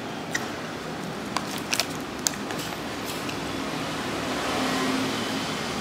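Steady background noise of an eatery, with a few sharp clicks, such as dishes or utensils knocking, in the first couple of seconds.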